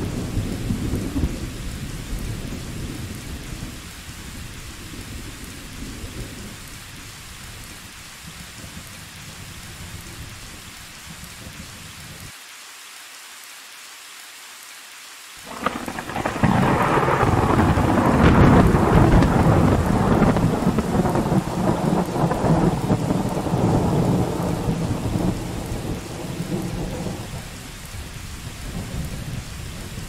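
Steady rain with thunder. A rumble of thunder dies away over the first several seconds. About halfway through, a loud clap of thunder breaks out suddenly and rolls on for around ten seconds before fading, while the rain hiss carries on underneath.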